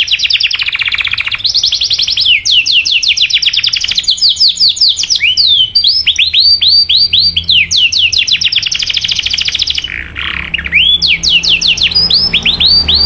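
Domestic canary singing in fast rolling trills: rapid runs of repeated down-slurred chirps. The pattern and speed of the runs change every second or two, with a brief break about ten seconds in.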